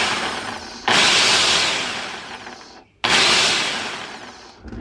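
Compressed air blown in three hissing blasts into an electric chainsaw's opened motor housing to clear out cobwebs and sawdust. Each blast starts sharply, fades, then cuts off.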